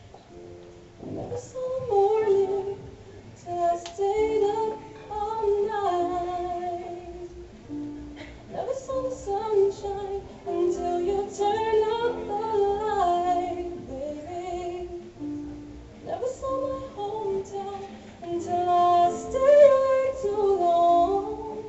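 A woman singing a slow melody over sustained chords from a small keyboard instrument, with short breaks between phrases.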